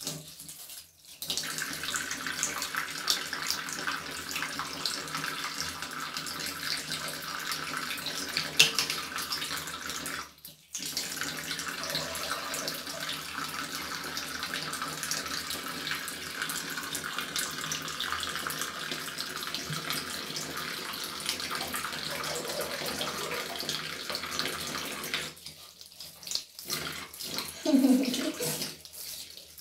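Water from a bathroom tap running steadily into a ceramic basin, cutting out briefly about a second in and again about ten seconds in. Near the end comes a short voice-like sound.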